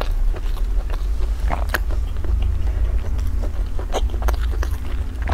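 Close-miked chewing of soft bread, with irregular wet mouth clicks and smacks over a steady low rumble.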